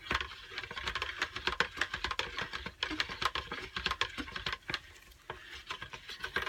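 Stick blender being worked through thin, still-untraced soap batter in a plastic bucket: a busy, irregular clicking and pattering throughout.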